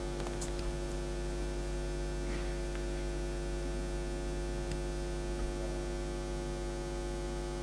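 Steady electrical mains hum: a constant buzz made of many evenly spaced overtones, with nothing else over it.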